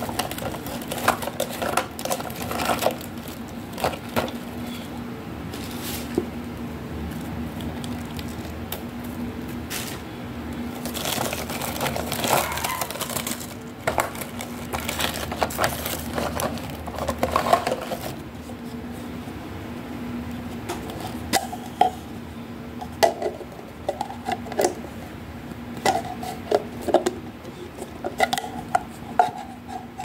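Plastic toy tea set being handled: hollow plastic cups, basket and teapot knocking and clicking against each other, with the mesh net bag and packaging rustling for several seconds mid-way and a run of quick plastic clinks near the end. A steady low hum runs underneath.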